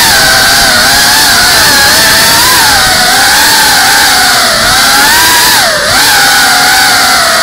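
Cinewhoop FPV drone's brushless motors and propellers whining in flight, heard from its onboard camera, the pitch wavering up and down with the throttle. About six seconds in the whine briefly drops in pitch and level, then climbs back.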